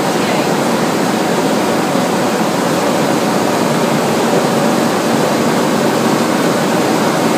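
Wallpaper printing press running steadily, a constant, even machine noise with no distinct knocks or changes.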